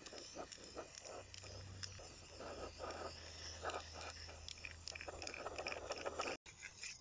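Aerosol can of high-temperature black spray paint hissing faintly in a run of short bursts, the sprays growing longer in the second half.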